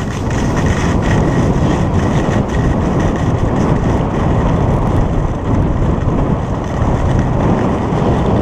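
Rushing wind buffeting an action camera's microphone while skiing fast downhill, with skis scraping over groomed snow; a loud, steady rumble with no break.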